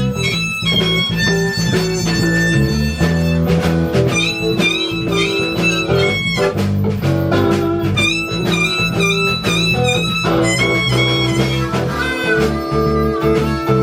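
Blues band playing an instrumental passage: guitar and harmonica over a steady low line, with bent notes.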